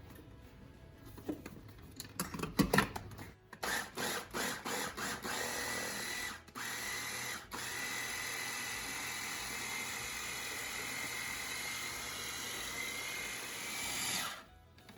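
Small electric kitchen blender running on cream cheese curds as whey is added: a few short pulses, then a steady run with a faint high whine, with two brief stops, before it cuts off near the end.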